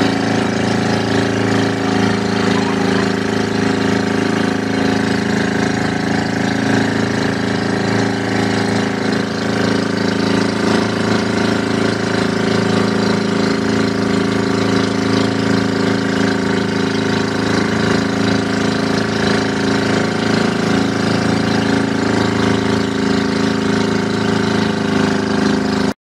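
Outrigger fishing boat's engine running steadily at an even speed, a constant drone with no change in pitch.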